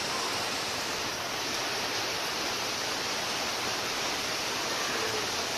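A steady, even hiss, like rushing water or rain, with no distinct events.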